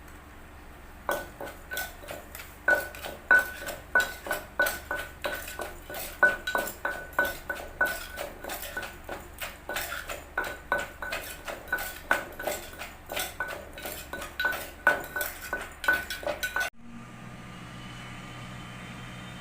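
A kitchen utensil striking a dish over and over, about two to three hits a second, each with a short ringing clink at the same pitch. The strikes stop abruptly near the end, where a steady low hum takes over.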